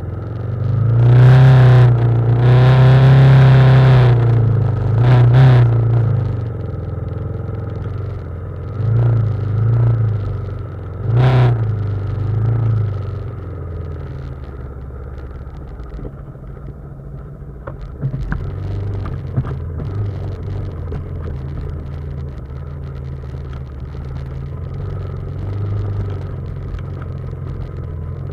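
BMW G310GS single-cylinder motorcycle engine revving in short surges during the first dozen seconds, then running at steady low revs.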